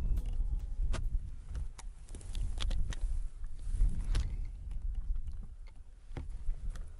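Wind rumbling on the microphone, with scattered rustles and sharp clicks from movement through dry grass.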